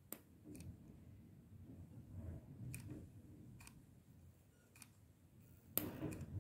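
Faint sharp clicks, about six spread unevenly, from a mini hot glue gun being squeezed as glue is laid on fabric yo-yo petals, with soft rustling of the fabric in hand between them; the loudest click comes near the end.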